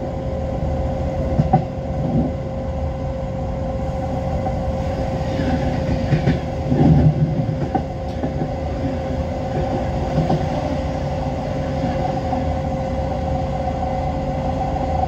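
Train running over points and rail joints, heard from its front end: a steady running rumble with a constant whine and scattered wheel clicks. About six seconds in a louder rush comes as another train passes close alongside.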